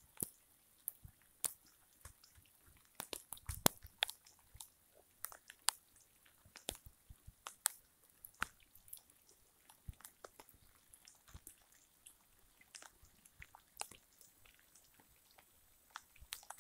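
Light rain: scattered raindrops landing close by as irregular sharp taps and ticks, a few each second.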